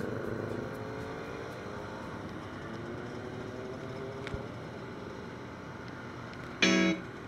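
Scooter and motorcycle engines running in a moving pack, a steady drone whose pitch slowly rises as they speed up. Near the end a short, loud tone, the loudest sound, cuts in briefly.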